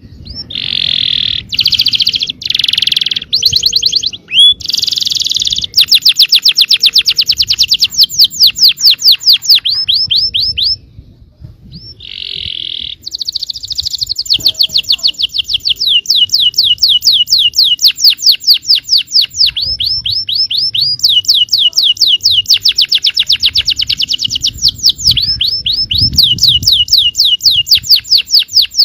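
Yellow domestic canary singing a long song of rapid trills: fast runs of repeated high, sweeping notes, with a short pause about eleven seconds in.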